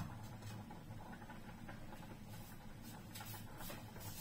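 Faint steady hum of a lit gas stove burner heating an empty frying pan, with a few light ticks and taps over it.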